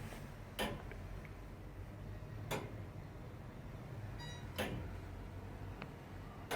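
Church tower clock's escapement ticking, one sharp tick about every two seconds.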